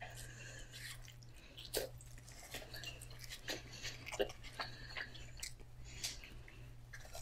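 Close-miked chewing and mouth sounds of a person eating seafood boil, with scattered short wet smacks and clicks.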